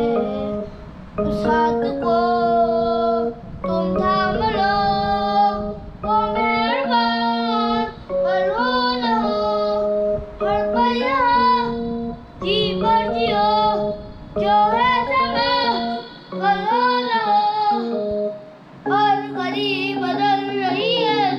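A child singing a song into a microphone while accompanying himself on an electronic keyboard, with held keyboard notes under the voice. The singing comes in phrases of about two seconds with short breaks between.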